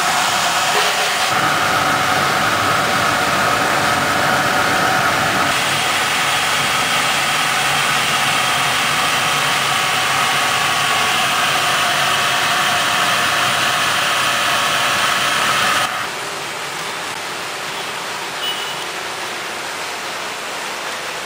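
Gas-fired ladle preheater running: its centrifugal combustion-air blower and burner make a loud, steady rushing noise with a faint hum of steady tones. About sixteen seconds in it drops abruptly to a quieter, even rush.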